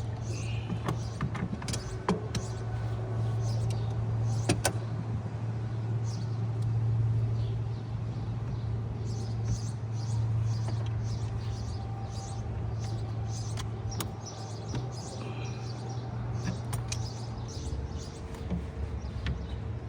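Coolant hoses and clamps being refitted to a plastic coolant reservoir by hand: scattered clicks, clinks and plastic knocks over a steady low hum.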